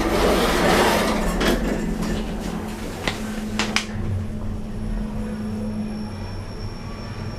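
Older MP lift in operation: the doors slide and clunk with a few sharp clicks in the first four seconds. Then the car runs with a steady low hum and a faint high whine.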